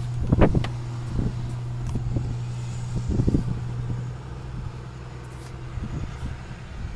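A few knocks and rustles, likely from opening the pickup truck's cab door and getting in, over a steady low hum that fades away about four seconds in.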